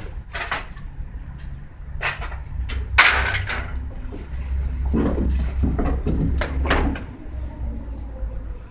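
Rummaging through scrap in a metal dumpster: a string of knocks, clanks and rattles, the loudest about three seconds in and a busy cluster between five and seven seconds, over a steady low rumble.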